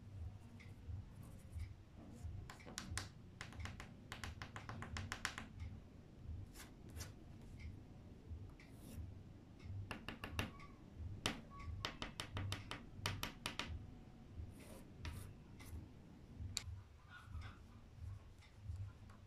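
A pastel stick tapping and scratching on paper as stars are dabbed on, in quick runs of several light taps a second with short pauses between.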